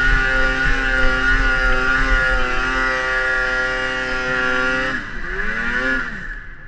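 Two-stroke snowmobile engine running at high revs, with a steady wavering tone. About five seconds in the revs drop and climb back, then the sound fades out.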